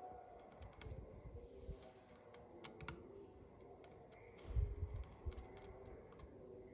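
Faint, irregular small clicks and ticks from a hand tool and fingers working at a motherboard's CPU socket, with a few dull bumps a little past halfway.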